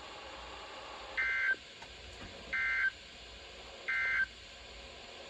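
NOAA Weather Radio EAS end-of-message signal: three short bursts of SAME digital data tones, a rapid two-tone warble, about one and a third seconds apart, over steady radio hiss. They mark the end of the weekly test broadcast.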